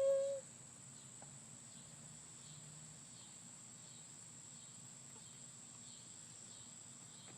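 Steady high-pitched chirring of crickets. Right at the start, a short rising meow-like call.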